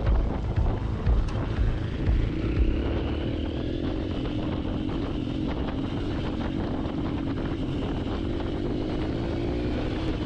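Hero Impulse motorcycle's single-cylinder engine running under way, its note holding fairly steady with slight rises and falls. A heavy low rumble of wind on the microphone is strongest in the first couple of seconds.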